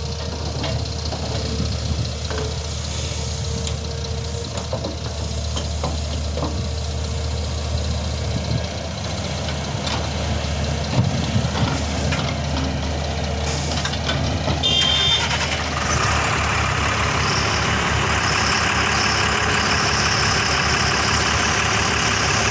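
Heavy diesel engines of a large excavator and a tipper truck running steadily at a work site. A brief high beep sounds about two-thirds of the way through, and the engine sound then grows louder.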